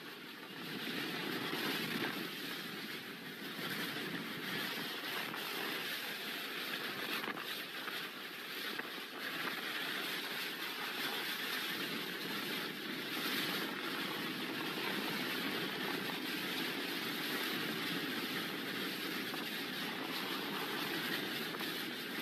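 Hurricane-force wind blowing steadily, a continuous rushing noise that swells slightly now and then.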